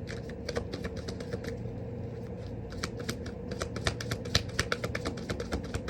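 A tarot deck being shuffled by hand: rapid, irregular clicks and taps of cards, several a second, over a faint steady hum.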